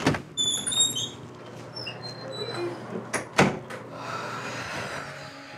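A wooden door opening: the latch clicks, then a short high squeak as it swings. About three and a half seconds in, it shuts with a loud knock.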